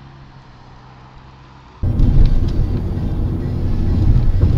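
Dashcam recording of a car driving: a quiet in-cabin engine hum with a steady low tone, then, about two seconds in, an abrupt change to a much louder low rumble of road and engine noise from another car's dashcam.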